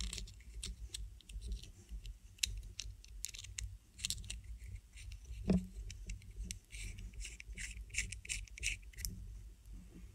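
Small metal clicks and scratches as a stainless-steel vape tank base is screwed onto its RBA deck by hand, over a low steady hum.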